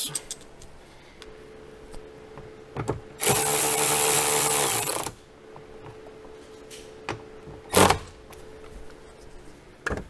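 Cordless drill-driver running steadily for about two seconds, driving in a fastener through a socket extension to secure the rear hatch pull handle. A few light clicks and a single sharp knock follow.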